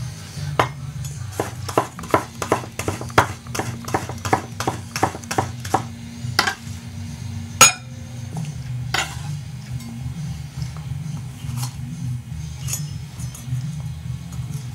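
Ikea Slitbar kitchen knife blade making a quick run of sharp metallic clicks against a hard surface, about three a second, which thins out after the middle to a few single clinks.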